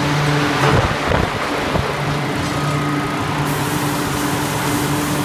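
A 7000-ton mechanical hot forging press running with a steady hum, with a few heavy knocks and clanks about a second in.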